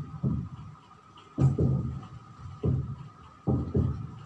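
A person's voice in short, muffled bursts of a syllable or two, with pauses between, over a faint steady high-pitched hum.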